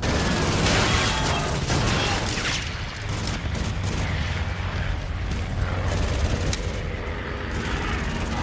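Film battle sound mix of a warship under air attack: rapid gunfire and blasts over a steady deep rumble, cutting in abruptly at the start.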